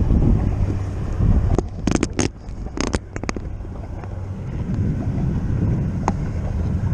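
Wind buffeting the microphone in a low, steady rumble, with a cluster of sharp clicks and knocks about two to three seconds in and one more click near the end.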